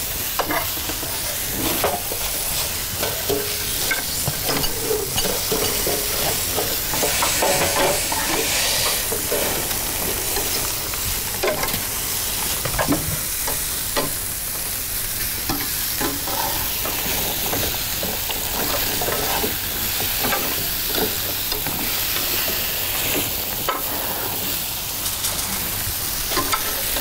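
Food sizzling in a hot pan, with a utensil stirring and scraping against the pan in frequent short clicks and knocks over a steady frying hiss.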